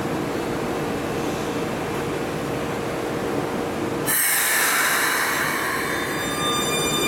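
Keikyu 1000-series electric train standing at an underground platform with a steady hum. About four seconds in comes a sudden loud hiss of compressed air from the train's pneumatics. Near the end the traction motor's electric whine, a set of steady tones, rises as the train starts off.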